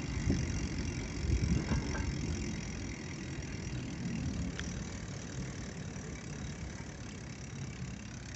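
Bicycle rolling over brick paving, with wind buffeting the microphone and rumbling unevenly, strongest in the first couple of seconds. A steady low engine hum sits underneath from about three seconds in.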